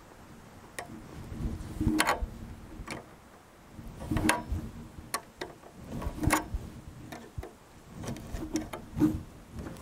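Flat steel spanner clinking and scraping against the steel bearing cup of a 1920 Seidel & Naumann Germania bell-bearing (Glockenlager) bottom bracket as it is set on, turned and set on again. The clinks come in clusters about every two seconds, with softer handling noise between.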